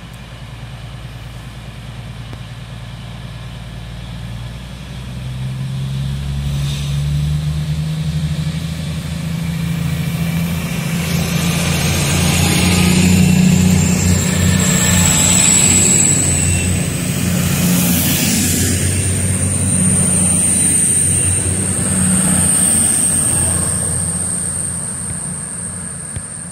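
Class 222 Meridian diesel multiple unit pulling away from the platform. Its underfloor diesel engines run low at first, then rev up from a few seconds in, rising in pitch and growing louder as the coaches pass close by. A high whine rises in pitch from about halfway and then holds steady.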